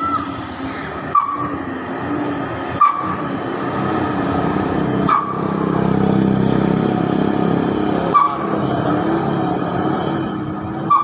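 Heavy truck's diesel engine running as it goes by, building to its loudest about six seconds in and then easing off, with several short sharp clicks along the way.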